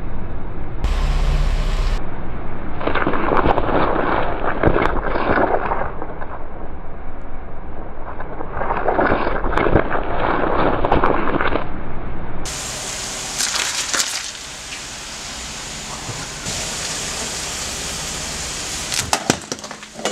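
A car tyre crushing vegetables: a long ridged gourd squashes and crackles wetly under the rolling tyre in two drawn-out swells. After that comes a quieter stretch with a few sharp snaps and cracks as a beetroot is crushed near the end.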